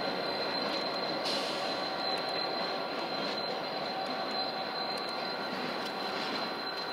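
CSX diesel locomotive running light on curved track, its wheel flanges squealing in a steady high tone over the rumble of the moving engine.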